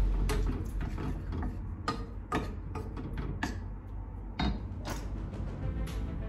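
Wooden spoon knocking and scraping against a stainless steel pot while stirring: a dozen or so irregular sharp taps.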